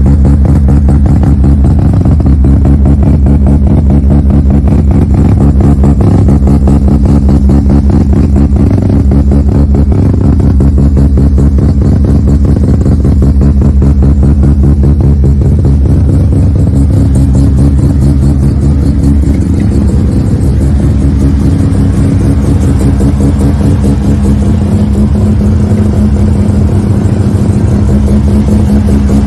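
Rotary (Wankel) engine swapped into an old Toyota Corolla, running steadily at idle with a fast, even pulsing, loud and close, without revving.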